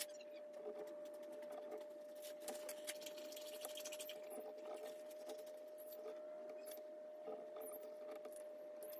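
Faint pencil scratching and light taps of a rule on a turned ash stool seat as it is marked out, over a faint steady hum.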